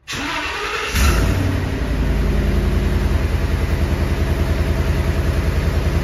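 Ford 5.4 L V8 in a 2014 E350 van cranked by the starter for about a second, then catching and settling into a steady run with an even pulse. It is running with a dead misfire on cylinder 7 from an open injector circuit.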